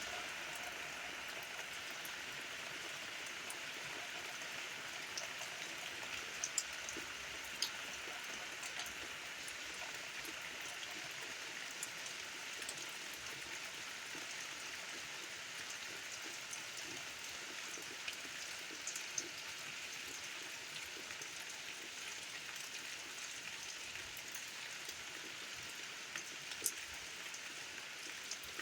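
Steady rain falling, with occasional louder single drops ticking close by.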